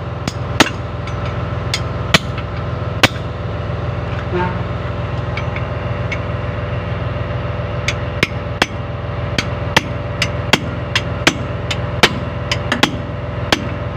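Sharp metal-on-metal clinks of spanners working the lower mounting bolt of a truck's shock absorber. A few scattered clinks come first, then a quicker run of about two a second from about eight seconds in, over a steady low hum.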